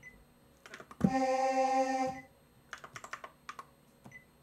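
One choir-patch note on a Korg Kronos synthesizer, held for about a second, between quick taps and clicks of fingers on the synth's touchscreen. The choir sample, said to come from the Korg M1 with one sample across the whole keyboard, is barely changed by the octave-and-transpose formant trick.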